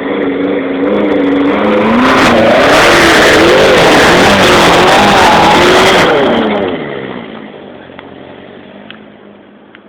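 Car engine revving hard on a trials hill climb, the revs rising and falling unevenly. It is loudest as the car passes close, from about two to six seconds in, then fades away.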